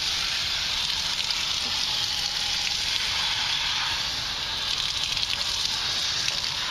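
Steady, even hissing noise with no change in level.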